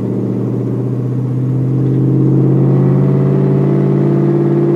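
A 2000 Chevy Silverado's 4.8-litre V8 running through its aftermarket exhaust while cruising, heard from inside the cab. The exhaust note is steady and swells slightly about two seconds in.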